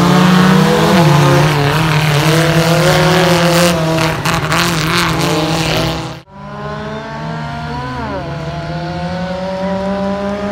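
Off-road 4x4 race vehicles' engines revving under hard throttle, pitch rising and falling, over a haze of tyre and track noise with some clattering. The sound breaks off abruptly about six seconds in, then engines revving again.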